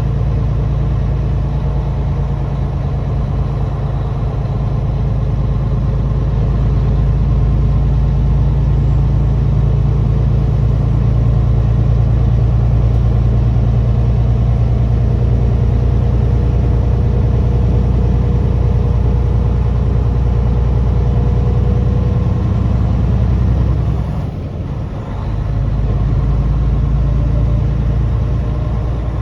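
Heavy truck's diesel engine running steadily while driving, with a deep, even drone. The engine sound dips briefly about five seconds before the end, then picks up again.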